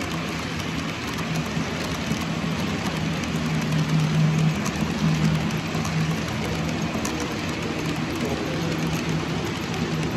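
Model train running on a layout: a steady rushing noise of wheels and motor, with a low hum that comes and goes and is loudest about four seconds in.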